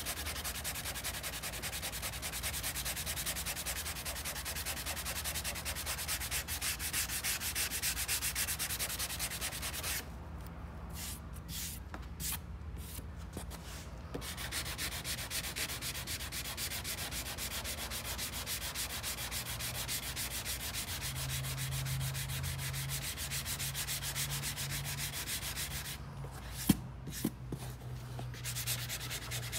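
Hand sanding with a sanding sponge block over cured epoxy filler on a soft-top surfboard's bottom, quick back-and-forth rubbing strokes that knock down the high spots and rough the surface for paint. The sanding pauses for a few seconds about ten seconds in and again near the end, where a single sharp tap is heard.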